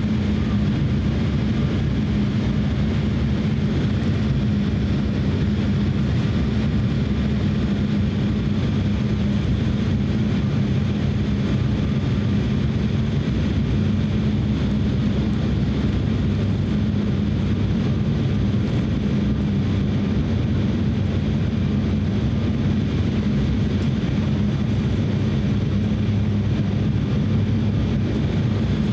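Cabin noise inside an Embraer E170 jet airliner on final approach: its two GE CF34-8E turbofan engines running with the rush of airflow, a steady low drone that does not change.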